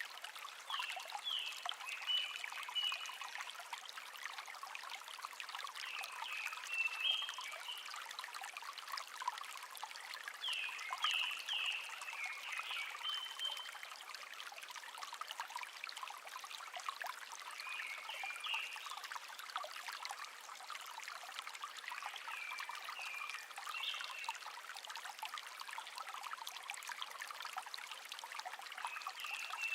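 Shallow stream babbling steadily, with a songbird repeating a short phrase of quick, high notes about every five seconds.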